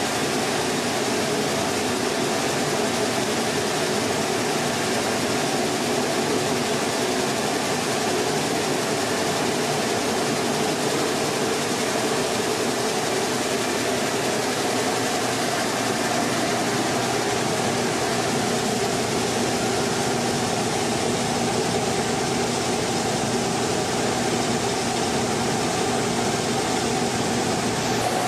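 Mini rice mill machinery running steadily: a continuous mechanical drone with a faint steady hum, unchanging throughout.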